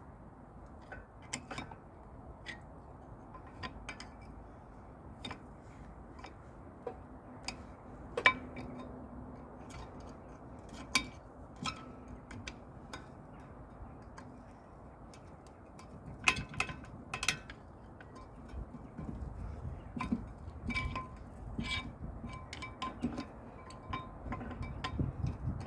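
Scattered metal clicks and clinks of brake parts and tools being handled at a brake caliper, some leaving a short metallic ring, coming more often near the end.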